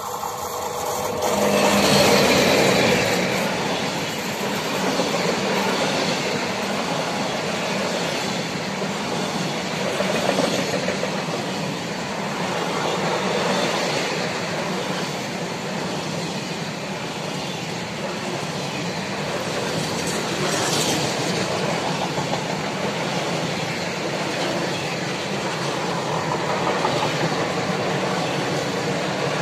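Electric locomotive of a freight train passing close by, loudest about two seconds in, followed by a long string of empty flat and intermodal wagons running steadily past on the rails.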